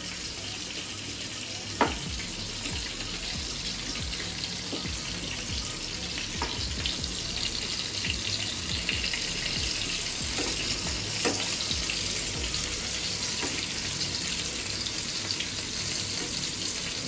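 Pointed gourd (potol) pieces shallow-frying in oil over a low flame: a steady, gentle sizzle. A few sharp clicks of a perforated steel spatula against the pan as the pieces are turned, the loudest about two seconds in.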